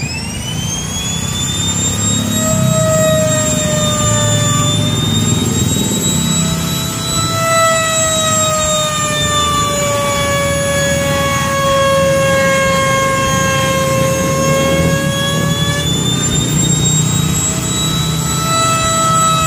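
Handheld electric trim router spinning up at the start, then running with a high whine as it cuts a groove through the laminate-faced door along a straightedge. The pitch sags gradually under load and picks back up near the end.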